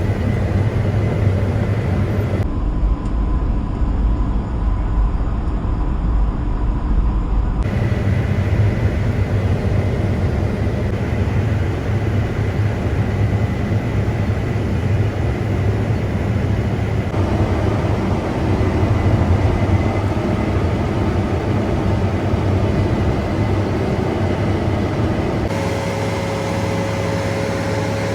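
Combine harvester running steadily while cutting rice, a loud, even machine drone with a strong low hum. The sound changes abruptly several times, as the machine is heard from different positions.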